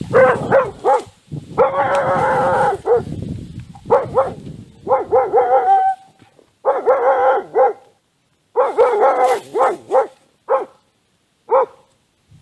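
A dog barking repeatedly, loud and close, in bursts of short barks with a longer run about two seconds in; the barks thin out to single ones near the end. This is alarm barking at a stranger who has just appeared from the reeds.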